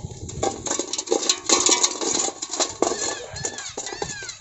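Crackling and rustling from a wet nylon cast net being handled as small fish and debris are picked out of the mesh, with a few short chirps about three seconds in.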